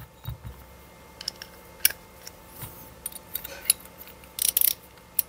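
Scattered light clicks and clinks of small metal carburettor parts being handled, as the brass needle-valve seat of an SU carburettor's float chamber is fitted by hand. A quick run of clicks comes about four and a half seconds in.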